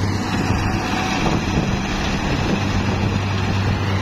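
Farm machinery engine running steadily with a low hum, with wind noise on the microphone.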